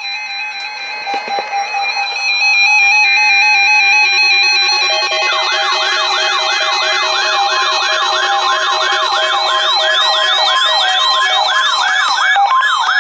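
Weather radio receiver's electronic alert alarm going off for the NOAA Weather Radio weekly test. Stepped, warbling electronic tones come first. About five seconds in, a loud siren-like tone starts sweeping up and down about two to three times a second.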